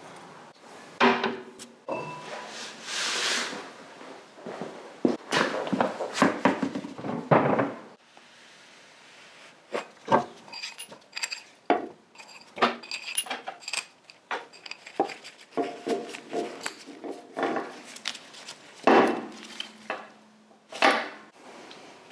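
Spanners and metal motorcycle parts clinking and clanking as they are worked and handled during the strip-down. The sounds come as scattered sharp knocks and taps, with a busier stretch of rattling and scraping in the first few seconds.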